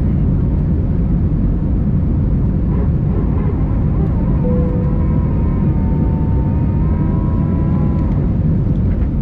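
Steady rumble of engine and air noise inside the cabin of an Airbus A320-232 airliner. A brief tone sounds about halfway through, followed by a faint wavering tone lasting about three seconds.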